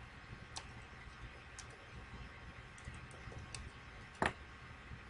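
A few sparse, faint clicks from a computer mouse and keyboard, the loudest about four seconds in, over a low steady background hum.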